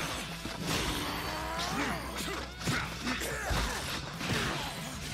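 Cartoon fight sound effects: a rapid run of punch impacts with whooshes in between.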